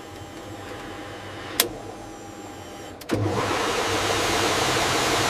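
Jet engine starting up. A low hum builds, a sharp click comes about a second and a half in, and about three seconds in a loud, steady rush of engine noise suddenly cuts in.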